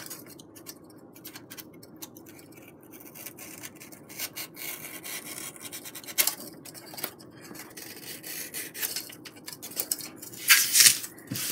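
A blade bevel-cutting the ends of foam board sections: irregular short scraping strokes, with a louder scrape about ten and a half seconds in.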